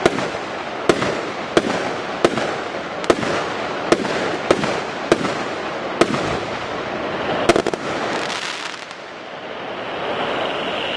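Piromax Aquila firework battery firing its shots, a sharp bang roughly every three-quarters of a second over a continuous crackle of the breaking stars. About seven and a half seconds in comes a rapid cluster of pops, then a denser crackle, and the last effects fade into a steady hiss.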